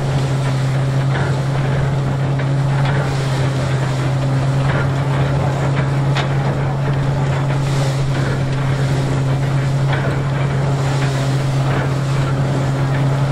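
Marshall threshing machine, belt-driven by a 1928 Marshall steam engine, running at speed while sheaves are fed in: a steady low hum with a busy rattling clatter and scattered light knocks over it.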